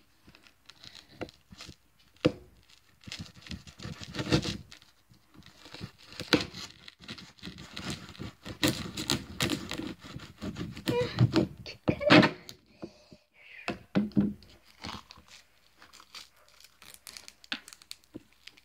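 Plastic popsicle wrapper crinkling and tearing as it is handled and cut at with a knife, with scattered knocks and scrapes; the noise comes in irregular spells, loudest about four seconds in and around the middle.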